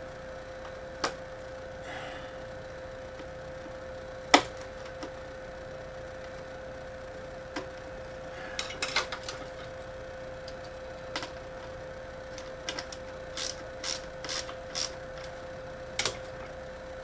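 Scattered clicks and small metal taps as a screwdriver works a mounting screw on a laser edge-finder case in small turns, with a quick run of clicks about every half second near the end. A steady hum runs underneath.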